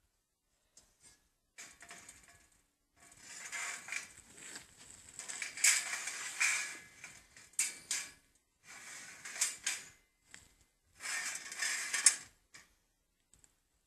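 Sheet-metal panels scraping and rattling against the steel wire mesh of a cage trap as they are slid and fitted into place, in several separate bursts with sharp metallic clicks, starting about three seconds in.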